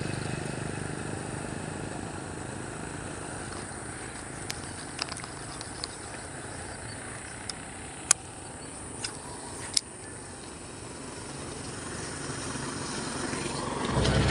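A distant motor engine running steadily in outdoor ambience, fading a little and then swelling again near the end, with several sharp clicks midway, the loudest about eight seconds in.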